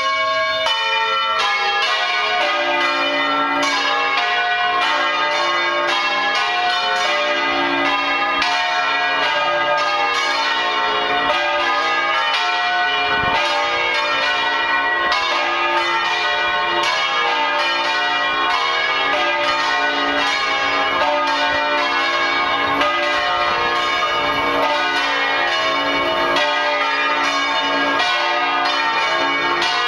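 The five swinging bronze church bells of Bologna's Basilica di San Francesco, tuned D-F-G-A-C, rung in the Bolognese 'doppio' style: a fast run of overlapping bell strikes that starts suddenly and rings on without a break.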